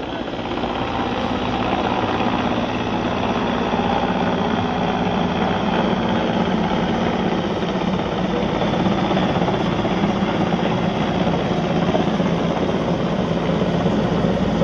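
A steady engine drone with a constant low hum, growing a little louder over the first two seconds and then holding level.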